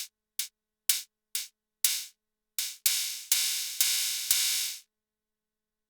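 Arturia DrumBrute Impact's analog cymbal voice triggered about ten times in a row, hissy and high-pitched. The first hits are short and clipped, then each rings out longer as its decay is turned up. The last hits run into one another before the sound stops a little under five seconds in.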